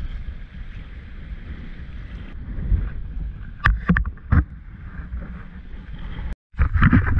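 Small boat under way at sea: a steady low rumble with wind on the microphone, and three sharp knocks around the middle.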